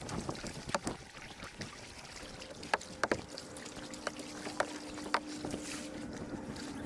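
Kayak paddling: the blades of a double-bladed paddle dip and splash in choppy water, with water dripping and sharp clicks and knocks scattered through. A faint steady hum comes in about halfway.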